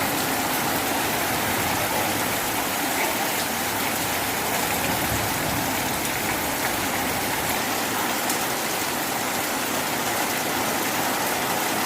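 Heavy rain pouring down steadily, a dense even hiss with no break.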